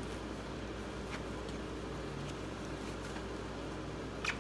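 Steady low room hum, with two faint clicks as items are handled out of a produce box.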